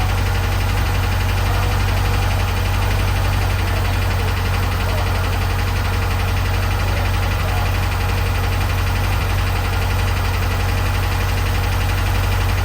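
Engine of a 912 idling steadily with a regular low beat. The owner is unsure whether this sound is normal or a sign of a fault.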